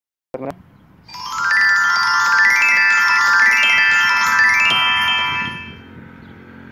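Startup jingle of the Turkcell SİM app: a bright glockenspiel-like tune of quick rising note runs, starting about a second in and fading out about a second before the end.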